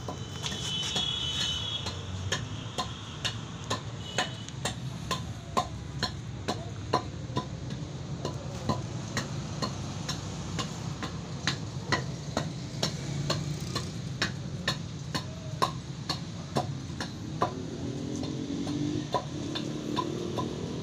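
Small 10 kg pneumatic forging hammer running: a steady low motor hum with sharp, regular clicks from the mechanism about twice a second.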